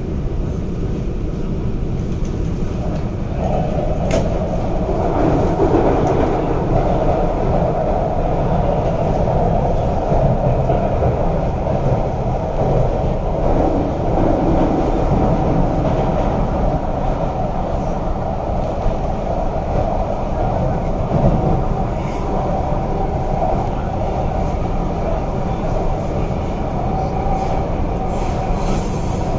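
Interior running noise of a Qingdao Sifang–built MTR Kwun Tong line Q-Train metro car in motion: a steady rumble of wheels on rail and running gear, heard from inside the car, growing louder about three seconds in.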